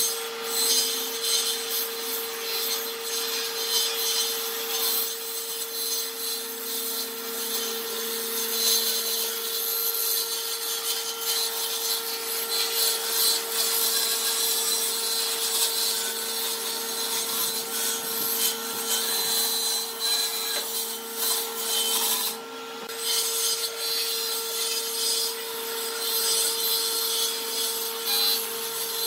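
Electric power tool working wood: a steady motor whine under a continuous rasping hiss of cutting or sanding. The rasping eases for a moment about three-quarters of the way through while the motor keeps running.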